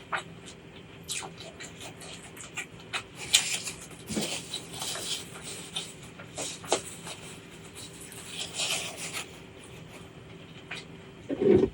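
Close-miked eating sounds: wet chewing with many small mouth clicks and smacks, and a few crunchy chewing spells about three seconds in, around five seconds in and past eight seconds. A louder low thump comes near the end, over a faint steady hum.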